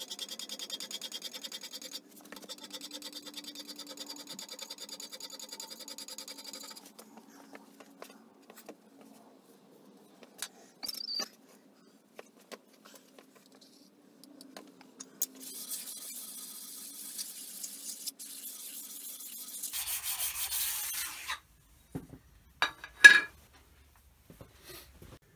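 A slip stone rubbed back and forth on the cast-iron bed ways of a Holbrook lathe in quick, even strokes, which stop about seven seconds in. Later come a few seconds of hissing scrubbing and, near the end, one sharp knock.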